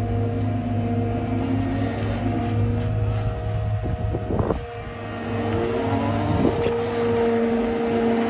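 Cat 299 compact track loader running hard with its Denis Cimaf mulching head engaged: a steady, loud engine and hydraulic drone. Its pitch sags and recovers a couple of times, with a brief dip about halfway through.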